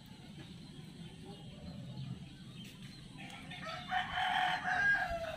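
A rooster crowing once, starting about three seconds in: a single long call of about two seconds that drops in pitch at its end.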